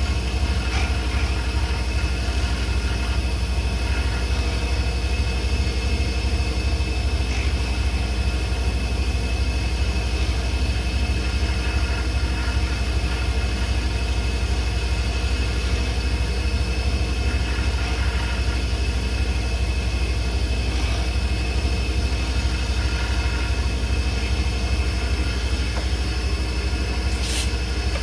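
Small wood lathe running steadily with a low motor hum while a turning tool takes light cuts on a spinning mother-of-pearl pen blank. A single sharp click comes near the end.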